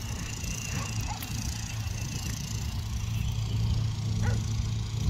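Riding lawn mower engines running steadily in the distance as a low, even hum, with a short faint yelp about four seconds in.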